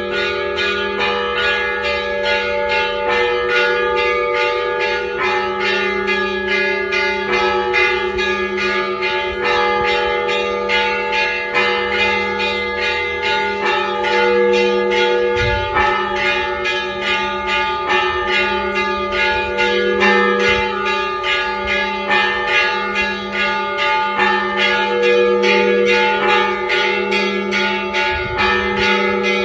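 Church bells ringing in a continuous, rapid peal: many bells struck in quick succession over the steady low hum of a large bell.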